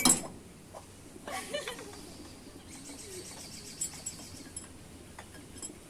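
A sharp click, then bird chirps and calls.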